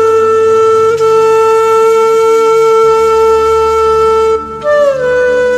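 A loud wind instrument holding one long steady note. After a brief break about four and a half seconds in, it takes up a slightly higher note that slides down a little and holds.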